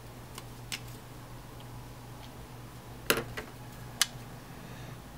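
A few sharp clicks over a steady low hum, the loudest a quick double click about three seconds in and another single click about a second later.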